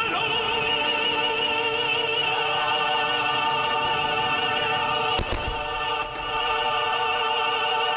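Music with operatic singing: long held notes with a wide vibrato. A single thump cuts through it about five seconds in.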